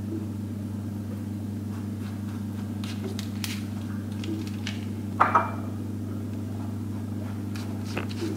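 Pastry brush dabbing and stroking egg glaze over soft bread dough, with light scattered taps and a sharp double clink about five seconds in, over a steady low hum.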